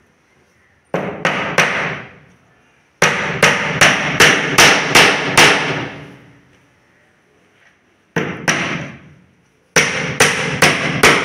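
A hammer nails a plywood strip onto a plywood board in quick runs of sharp blows, about three a second. There are four runs with short pauses between them.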